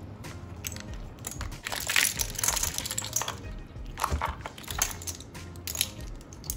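Boiled shrimp, crab, clams, corn cobs and potatoes tumbling out of a colander into a stainless steel bowl, with the shells and pieces clattering in irregular bursts, loudest about two seconds in. Background music runs faintly underneath.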